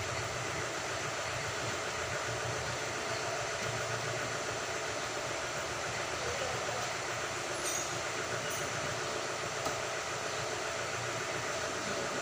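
Steady machine noise, a low hum under an even hiss, continuing without a break.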